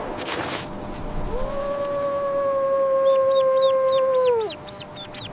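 An animal gives one long call held at a steady pitch for about three seconds, dropping away at the end. Partway through, a bird's short, high chirps start repeating about four times a second.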